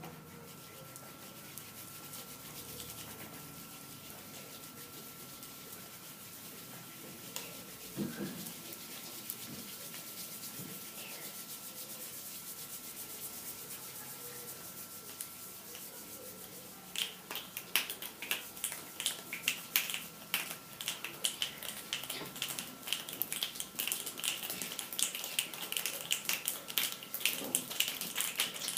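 A group imitating rain with their hands: a soft steady rustle of palms rubbing together, then, about two-thirds of the way through, a dense irregular patter of finger snaps like raindrops.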